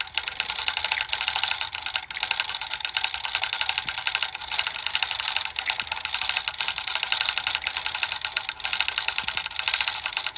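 Manual chain hoist ratcheting with a rapid, steady clicking as its hand chain is pulled to lift a heavy granite monument.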